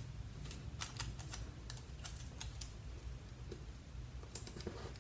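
Scattered light clicks and taps of fingers handling paper and clear scotch tape, pressing a photo down onto a planner page, over a low steady hum.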